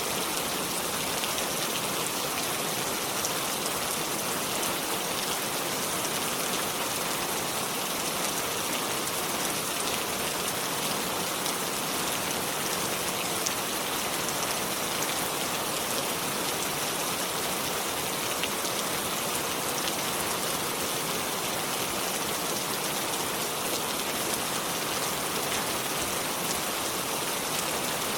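Steady rain falling: an even hiss with a fine patter of individual drops, unchanging throughout.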